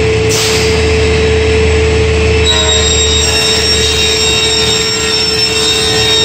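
Biesse Selco EB75 panel beam saw running as it cuts a thick solid-wood panel: a steady machine hum with a constant whine. Several higher whining tones join about two and a half seconds in.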